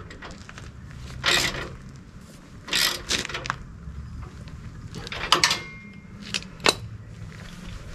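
Socket ratchet wrench tightening bolts on a steel swing-away bracket: several short bursts of ratchet clicking a second or two apart, then two sharp clicks near the end, over a low steady hum.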